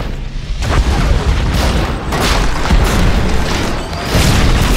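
Film explosion and crash effects: a run of deep booms and crashing impacts from a fireball and wreck tearing through a concrete parking garage, with music underneath.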